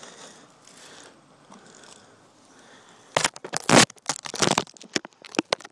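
Loud, irregular crackling and scraping of a mask and camera mount being handled right at the microphone, starting about three seconds in after a quiet stretch.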